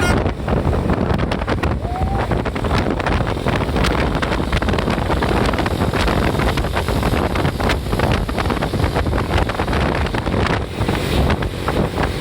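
Wind buffeting the microphone over the rumble of traffic and a vehicle's engine, a loud steady roar full of crackling gusts.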